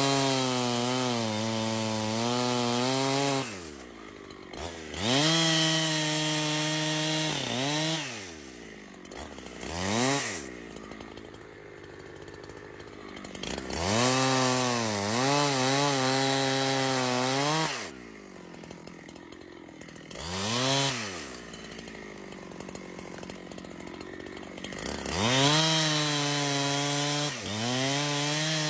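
Two-stroke chainsaw revved to full throttle and cutting wood in four runs of about three seconds each, its pitch dipping and recovering during each run. Between runs it falls back to idle, with two short blips of throttle.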